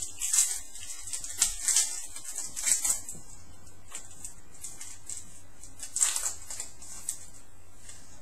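Trading cards being handled and slid against one another: several short papery rustles in the first three seconds and another about six seconds in.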